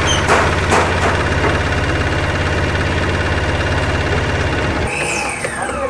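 Mahindra Maxximo's engine idling with a steady low pulse, then cutting out about five seconds in as it is switched off.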